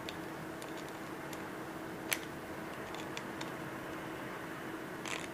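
Small clicks and ticks of a slim metal hand tool working on a small plastic part, with a sharper click about two seconds in and a short scrape near the end, over a steady low hum.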